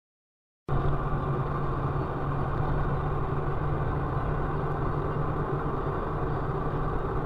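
Steady engine and road drone of a car cruising on a highway, heard from inside the cabin, with a constant low hum. It starts abruptly just under a second in.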